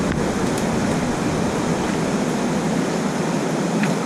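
Whitewater of a river rushing steadily, a loud even hiss.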